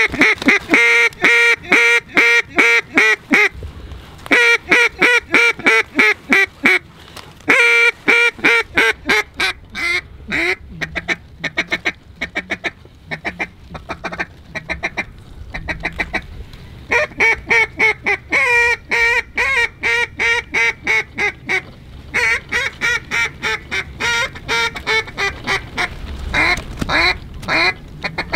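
Hand-blown mallard duck call sounding strings of loud hen quacks, several a second, in bursts of a few seconds with short pauses, and quicker, softer chatter in the middle stretch. It is a hunter's call to draw mallards in to the decoys.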